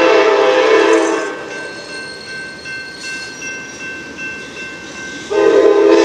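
Amtrak GE Genesis diesel locomotive's air horn sounding for a grade crossing: one blast cuts off about a second in, and after a pause the next blast starts about five seconds in.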